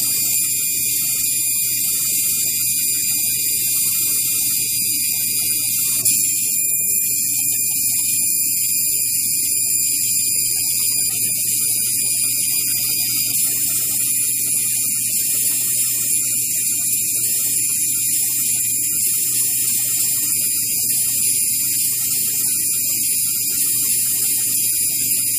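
Fiber laser marking machine running as it marks a barcode and numbers onto plastic ear tags: a steady hum with several high-pitched whining tones over it.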